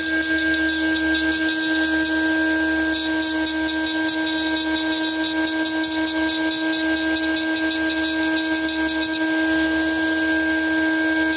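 High-speed rotary handpiece running at a steady pitch, its small burr grinding away the background on a stainless steel Glock 26 barrel, with a gritty scratching over the whine where the burr cuts the metal.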